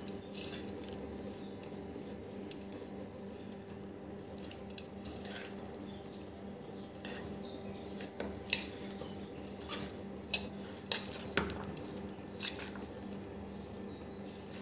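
Steel spoon clinking and scraping against a stainless steel plate while stirring a moist sabudana cutlet mixture of soaked sago pearls, mashed potato and crushed peanuts. The clinks come at irregular intervals and grow more frequent and louder in the second half, over a faint steady hum.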